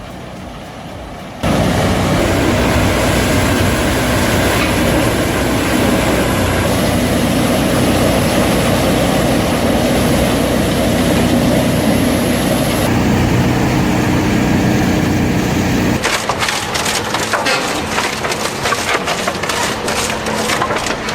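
A heavy wood-processing machine running loud under load as it grinds and chips wood, with a steady engine hum beneath, starting suddenly about a second and a half in. About sixteen seconds in it changes abruptly to a rapid run of sharp cracks and snaps of wood splintering.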